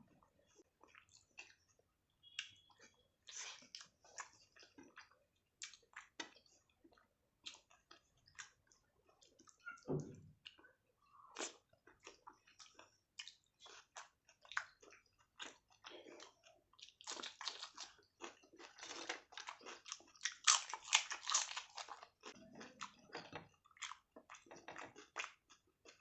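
Close-miked eating: a person chewing mouthfuls of rice with egg curry and mashed aubergine, with wet mouth clicks and squishes, and a denser crunchy stretch near the end, as of papad being bitten.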